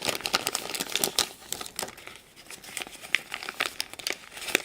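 Hands crinkling and tearing open a toy's plastic wrapper: a run of quick, sharp crackles that thins out briefly in the middle, then picks up again.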